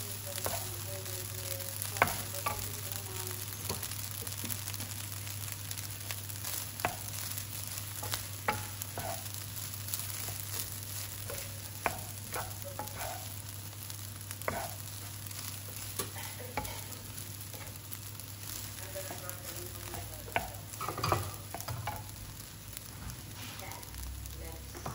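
Rice sizzling in a nonstick frying pan as a wooden spatula stirs and scrapes through it, with scattered light knocks of the spatula against the pan.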